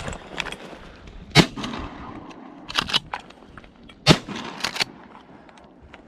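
Two loud shotgun shots about two and a half seconds apart, with fainter sharp cracks between and just after them.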